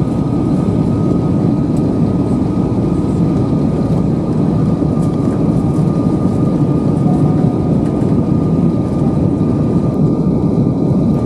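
Steady cabin noise of an Airbus A320 airliner on its descent to land: a dense, even rumble of engines and rushing air, with a faint steady whine above it.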